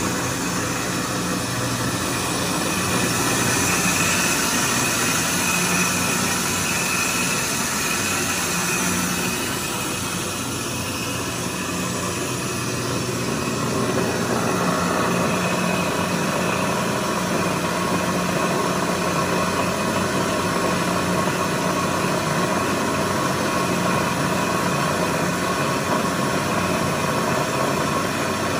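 DCM PDG 5-3AF rotary punch and die grinder running under power: a steady electric motor hum and whine with a hiss. About halfway through it grows a little louder and a higher steady whine joins.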